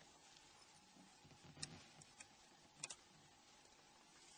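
Near silence: faint room hiss with a few faint, short clicks, one of them doubled.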